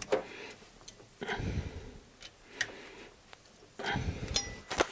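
Hand wrench on cylinder head bolts, turning each a further 90 degrees in the final angle-tightening stage: scattered sharp metallic clicks with a few short scraping bursts.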